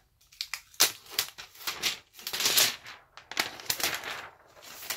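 Clear plastic wrap being peeled off a new laptop: irregular crinkling and crackling, with a sharp snap about a second in and a longer rustle about halfway through.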